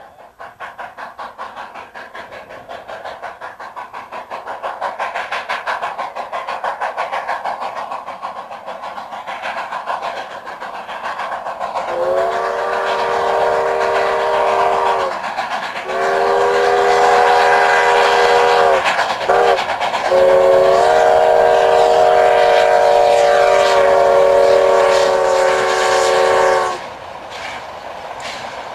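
Steam locomotive hauling a train of ore cars, its exhaust chuffing in a steady beat of two or three a second. About halfway through, its steam whistle sounds two long blasts, a short one and a final long one, the pattern of a grade-crossing signal. The whistle cuts off near the end and the chuffing carries on underneath.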